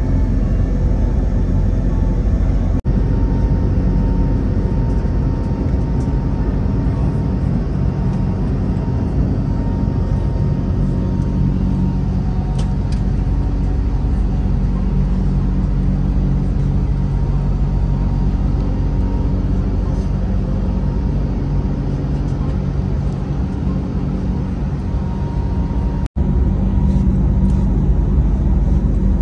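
Steady cabin noise inside an Airbus A321neo in climb: a low drone of engines and airflow with a faint steady tone above it. The sound cuts out for an instant twice, about three seconds in and near the end.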